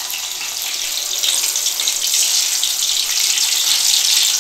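Battered vegetable pieces deep-frying in hot oil: a loud, steady sizzling hiss.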